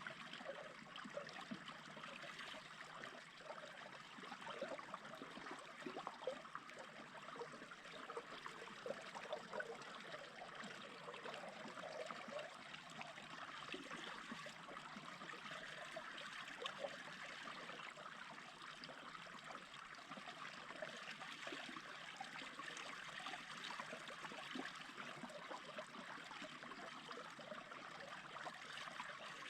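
Small stream babbling and gurgling over stones, a steady flow with little splashes.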